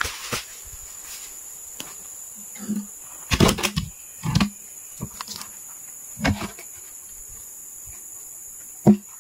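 Footsteps, knocks and scuffs of a person climbing onto a sawn ironwood log, over a steady high-pitched insect drone. The knocks come in clusters about a third and halfway in, then singly, with the sharpest one just before the end.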